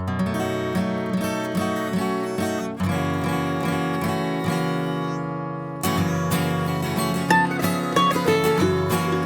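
Acoustic guitar instrumental intro: strummed chords, one left to ring for about three seconds midway, then fresh strumming with short picked single-note lines near the end.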